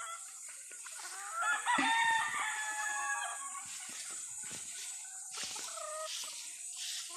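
A rooster crows once, a long drawn-out crow starting about a second and a half in and lasting nearly two seconds. Other chickens cluck in short calls around it.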